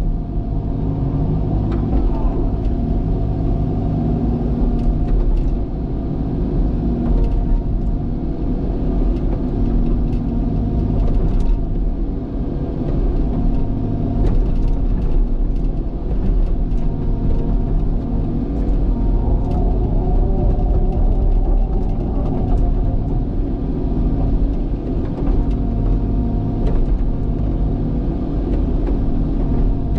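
Cat excavator's diesel engine running steadily under load, with scattered clicks and knocks from the bucket working rocks.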